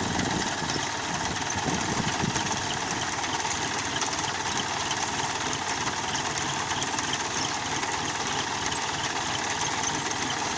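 John Deere 5050 tractor's three-cylinder diesel engine running steadily under load as it pulls an onion digger through the soil.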